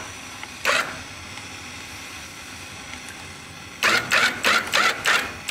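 Motorcycle landing gear being powered through its travel by its actuator with the engine off: a steady low mechanical running sound, with a single short harsh noise early on and a quick run of five or six short harsh noises near the end.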